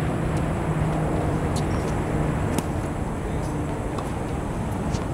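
Tennis balls struck by rackets during a feeding drill: a few sharp pops a second or two apart, over a steady low outdoor rumble and hum.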